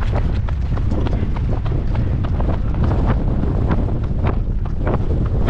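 Wind buffeting the microphone with a steady low rumble, over the quick, irregular footfalls of runners just set off from a mass start.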